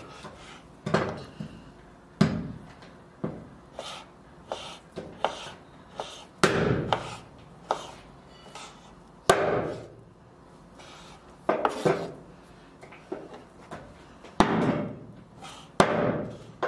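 Chef's knife cutting a block of white fat into cubes on a wooden cutting board: irregular knocks of the blade against the board, about one a second, with a few longer slicing strokes.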